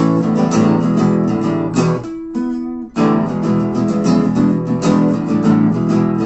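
Acoustic guitars strumming a rhythmic instrumental passage of a song. About two seconds in the strumming stops dead, leaving a held chord ringing briefly, and it kicks back in about a second later.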